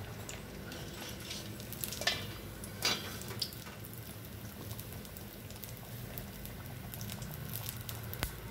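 Breadcrumb-coated vegetable patty deep-frying in hot oil: a steady bubbling sizzle dotted with small crackles, with a few louder clicks about two and three seconds in.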